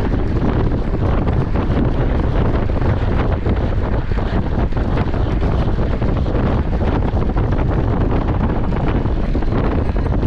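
Loud, steady wind rush buffeting a bike-mounted action camera's microphone as the rider moves at speed on the track.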